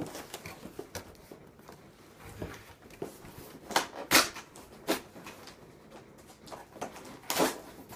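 A cardboard box flap being pried and pulled open by hand: scattered scrapes and rustles of cardboard, loudest about four seconds in and again near the end.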